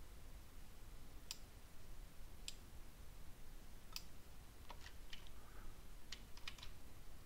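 Faint, irregular clicking of computer input devices, about ten light clicks, more of them in the second half.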